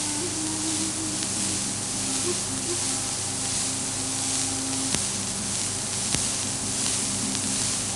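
Steady hiss under faint low sustained tones, with two short clicks, one about five seconds in and one about a second later.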